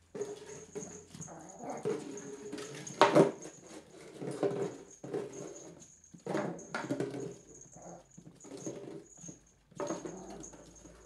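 Cairn terrier puppy playing with an empty plastic bottle: irregular clattering, crackling and scuffling of the bottle against the tile floor, with one loudest knock about three seconds in. The puppy whimpers at times.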